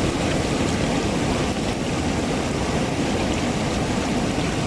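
Steady outdoor rushing noise, heaviest in the low end, with no clear event standing out.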